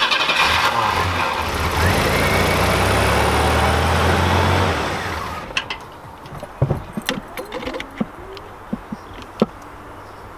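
A Chevy S10 pickup's engine, long left sitting, being cranked by its starter off a jump pack for about five seconds before the cranking stops. Scattered sharp clicks and knocks follow.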